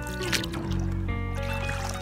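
Background music with long held notes over a steady low bass.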